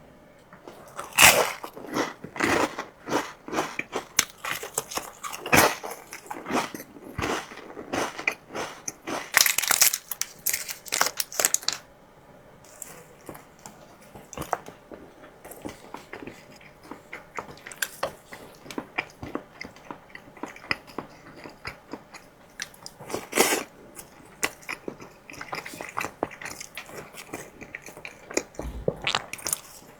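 Close-up crackles, clicks and crunches from chocolate desserts being unpacked and bitten into. They come thick and fast for the first dozen seconds, then grow sparser with a few sharp louder ones.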